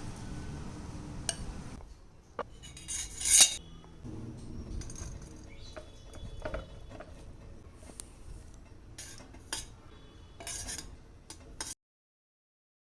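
Metal kitchen utensils and pots clinking and scraping in short irregular bursts, with the loudest scrape about three seconds in. The sound cuts off to dead silence near the end.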